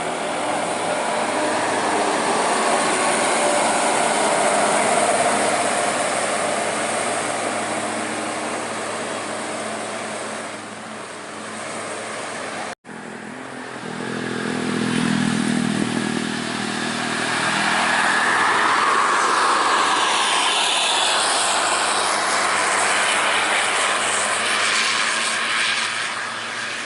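Large tour buses driving past on a road, engine and tyre noise swelling up and fading away. The sound drops out abruptly about halfway through, then a second pass-by rises and fades.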